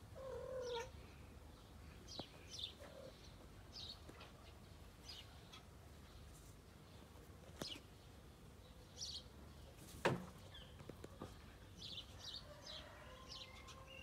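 Domestic cat meowing once, briefly, at the start, while small birds chirp now and then. A single sharp knock comes about ten seconds in.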